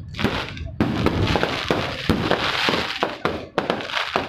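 Fireworks going off in quick succession: a dense run of sharp bangs and crackles.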